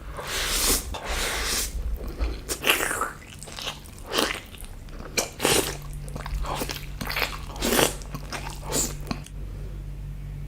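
A person biting and chewing food close to the microphone, in a run of irregular, wet, crunchy mouthfuls. The chewing stops about nine seconds in, leaving a steady low hum.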